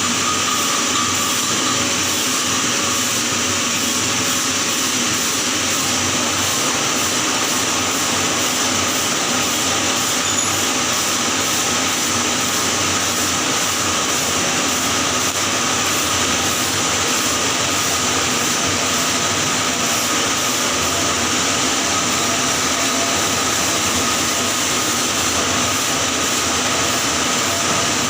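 Electric welding arc crackling and hissing steadily while a pipe joint is welded in the 6G position.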